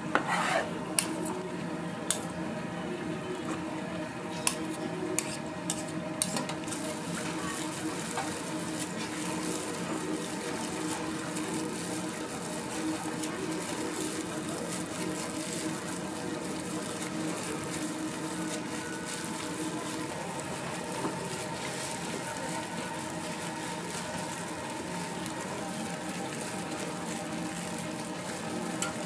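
Fish cake hot bars deep-frying in oil, a steady sizzle, with a few sharp clicks in the first six seconds.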